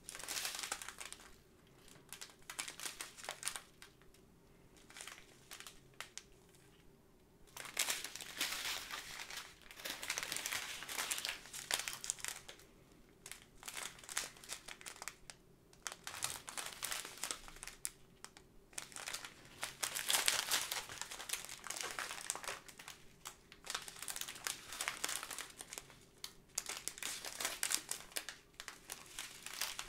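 Small clear plastic zip bags of round diamond-painting drills crinkling as they are handled and turned, in irregular bouts with a short lull early on.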